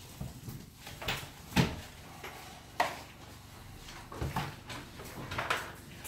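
Sheets of paper being handled and sorted, with several sudden sharp knocks and clatters; the two loudest come about a second and a half and about three seconds in.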